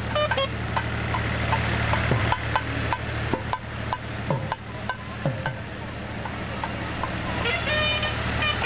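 Outdoor procession ambience: a steady low hum under a noisy wash of crowd and street sound, with occasional drum strokes about once a second, some with a low falling tone. Near the end a high held note with several overtones comes in.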